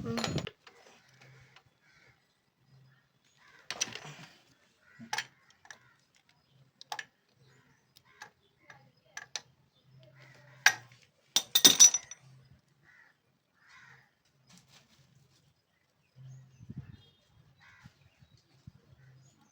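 Scattered clicks and metal-on-metal clinks of hand tools and engine parts on the opened top end of a motorcycle engine, with a louder ringing clatter about 11 to 12 seconds in.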